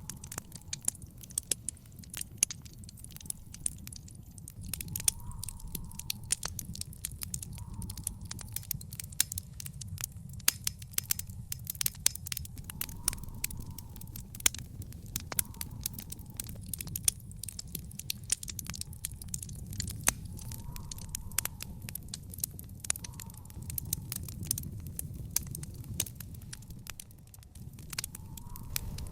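Wood fire burning in a fire pit: a steady low rumble of flame under dense, irregular crackles and sharp pops from the burning wood.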